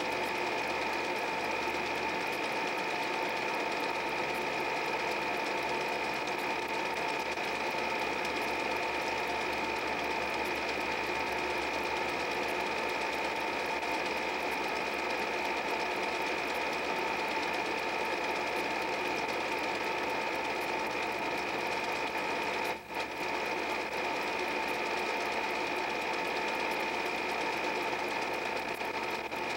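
8 mm film projector running with a steady mechanical whirr and a constant two-note hum. It dips for a moment about 23 seconds in.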